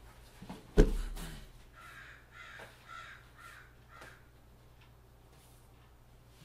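A single sharp thump about a second in, then a faint run of about seven short, harsh, evenly spaced calls between two and four seconds in.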